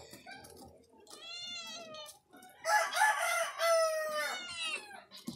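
A rooster crowing: a short call about a second in, then one long crow of nearly two seconds that starts about two and a half seconds in.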